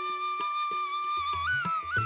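Background music: a flute holds one long note that bends up and down in the second half, over soft drum strokes.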